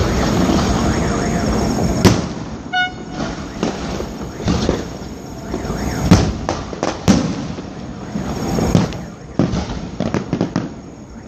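Fireworks display: a continuous rumble of launches and bursts, with sharp bangs at irregular intervals, one about two seconds in and several between six and nine seconds in.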